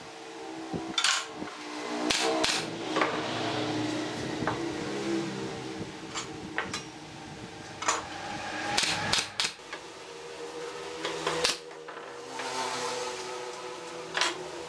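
Scattered wooden knocks and clatters as pine pallet-wood pieces and a steel square are handled and set down on the workbench, over a steady hum.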